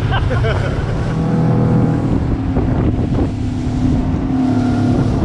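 Motorboat engine running steadily under way, its tone holding even over a thick rush of wind on the microphone and water along the hull.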